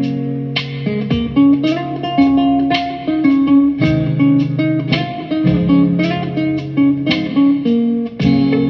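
Guitar music: plucked notes and chords over held bass notes, in a slow, soulful groove.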